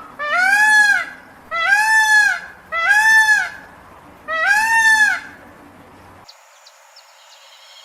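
Indian peafowl (peacock) giving four loud calls in quick succession, each a rising-then-falling wail. After about six seconds the calls stop and only faint high clicks remain.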